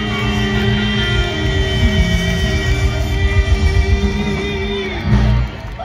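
Live blues band with electric guitar and a woman singing, holding long sustained notes. About five seconds in the held notes stop, a loud final hit closes the song, and the level drops.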